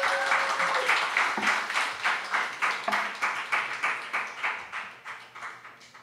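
Small audience applauding, the claps thinning out and dying away near the end.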